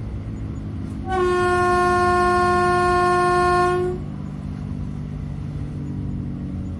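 Train's steady running rumble, with one horn blast about a second in that holds a single note for nearly three seconds before cutting off.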